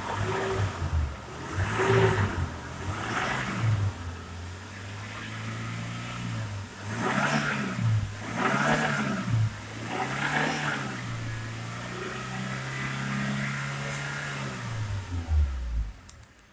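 2012 Toyota Hilux's 2.7-litre four-cylinder petrol engine running and revved several times, the pitch rising and falling with each blip of the throttle. The engine note drops away and stops near the end, followed by a few clicks.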